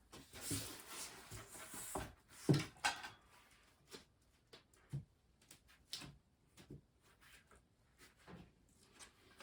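Compressed-wood sub-floor tiles on foam backing being handled and fitted together on a basement floor: scraping for the first two seconds, one loud knock about two and a half seconds in, then scattered lighter knocks and taps.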